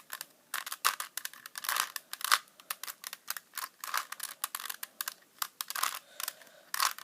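Rubik's Cube layers being turned quickly by hand in a run of moves, with rapid, irregular plastic clicking and clacking.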